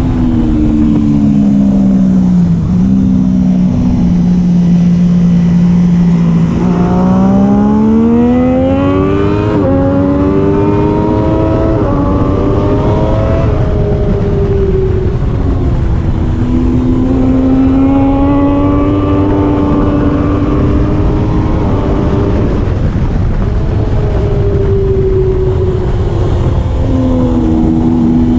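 Triumph Daytona 675R's inline three-cylinder engine at race pace. The revs drop under braking, hold low for a few seconds, then climb in steps through upshifts. They rise and fall twice more before dropping again near the end, over steady wind noise.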